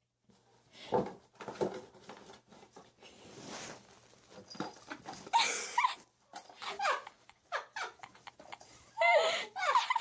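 A domestic cat meowing in several short, wavering cries, the loudest about five and a half seconds in and near the end, with scuffling and rustling in between as it moves about with a box over its head.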